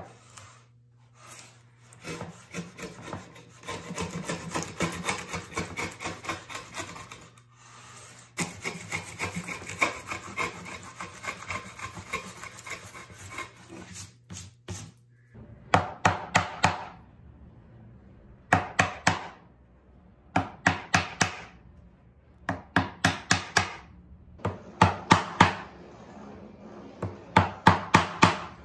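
A wooden hand plane cutting pine in a run of rhythmic scraping strokes. About halfway through it gives way to a chisel on pine, struck in short bursts of quick, light taps, each burst a second or so long and coming every couple of seconds.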